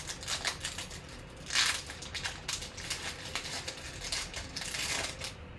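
A 2021 Panini Prizm football card pack's foil wrapper being torn open and crinkled by hand. It makes a run of crackling rustles, loudest about one and a half seconds in.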